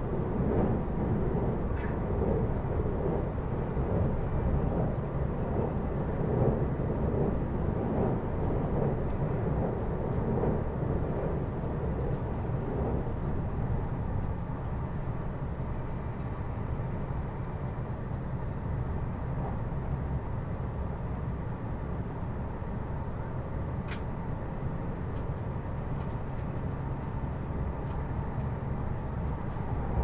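E259-series Narita Express electric train running at speed, heard from inside the passenger cabin: a steady wheel-and-rail rumble, heavier for the first dozen seconds while it crosses a steel truss bridge, then smoother. A single sharp click about 24 seconds in.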